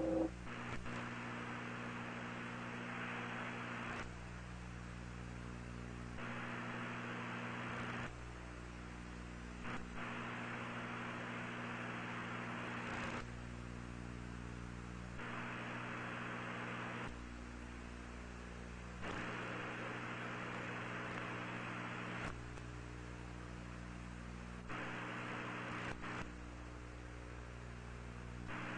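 Steady electrical hum with a layer of hiss that drops out and comes back every two to three seconds: the background noise of an old videotaped broadcast soundtrack.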